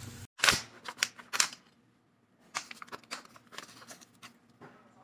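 A steady hum cuts off just after the start, followed by a quick run of sharp clicks and knocks, loudest in the first second and a half, then lighter scattered taps.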